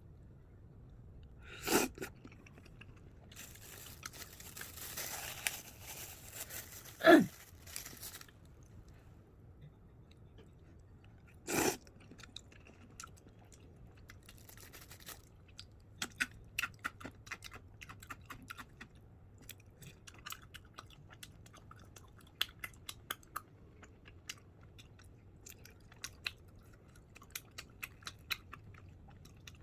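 A person eating close to the microphone, chewing and crunching food in many small crackly bites through the second half. Earlier come a few sharp knocks and a rustle lasting a few seconds.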